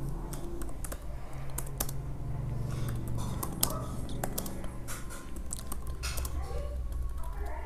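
Typing on a computer keyboard: irregular, quick key clicks over a low steady hum.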